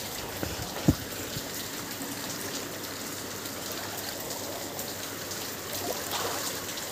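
Heavy rain and water running over a flooded road, a steady watery hiss, with a single dull knock about a second in.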